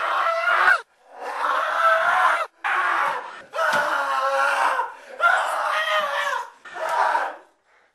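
Young voices screaming in a series of about six loud outbursts, each roughly a second long with short breaks between them, stopping shortly before the end.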